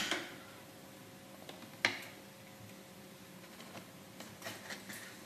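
Quiet kitchen background with a faint steady hum, after a loud noise dies away at the very start. There is a single sharp click about two seconds in, and a few light taps of a knife on a cutting board near the end.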